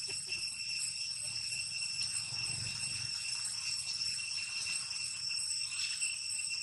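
Steady high-pitched insect drone, one unbroken ringing tone with overtones, over a low outdoor rumble.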